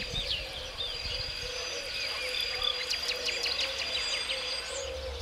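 Small birds chirping and singing over and over, over a steady low hum and a thin, high steady whine.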